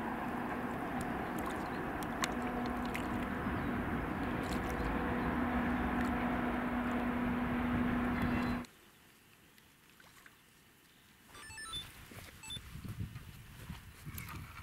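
A steady motor drone with a low hum that cuts off suddenly about nine seconds in. Near quiet follows, with faint clicks and a few high chirps near the end.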